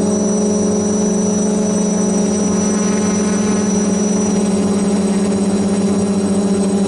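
The four electric motors and propellers of an F450 quadcopter in flight, heard from the camera mounted on its frame: a loud, steady buzzing hum.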